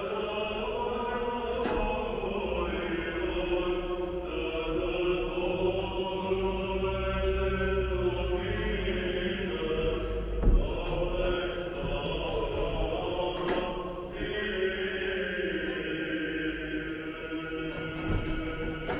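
Choir chanting in long, held notes, in the manner of Orthodox liturgical chant, with a brief thump about halfway through.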